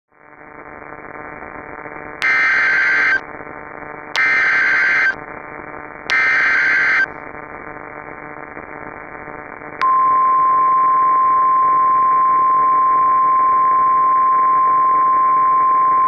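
Simulated NOAA Weather Radio alert. Radio static hiss fades in, then three EAS/SAME header data bursts sound, each just under a second and about two seconds apart. About ten seconds in, the steady 1050 Hz weather radio warning alarm tone begins and holds. Together they signal that a new warning is about to be read.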